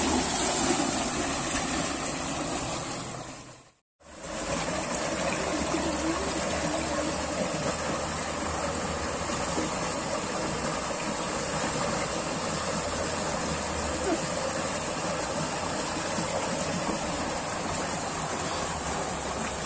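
Fast water rushing through a narrow concrete irrigation channel, a steady wash of flowing water. It cuts out briefly about four seconds in, then runs on unchanged.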